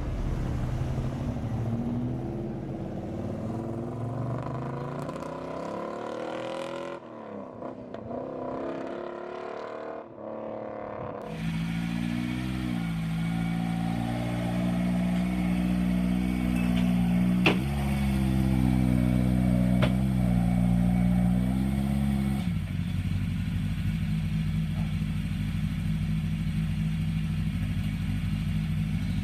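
Ford Escort Mk2 RS rally car engine idling with short throttle blips that briefly lift the pitch a few times, then settling to a steady idle. Earlier, a car engine rises and falls in pitch before a short lull.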